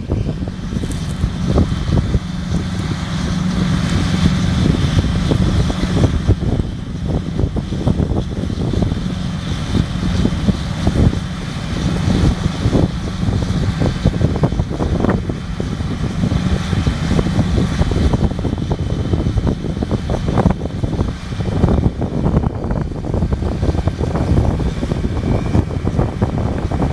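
John Deere 8430T track tractor's diesel engine running steadily while pulling a potato harvester, with a steady hum and a continual irregular clatter of knocks and rattles.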